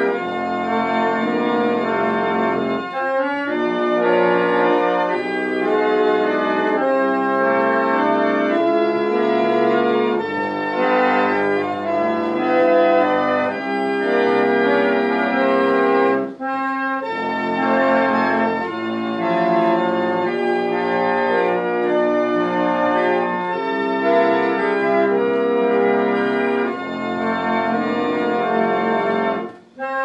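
Antique parlor pump organ (reed organ) playing a slow song tune in sustained chords over a moving bass. The playing breaks off briefly about halfway through and again just before the end, between phrases.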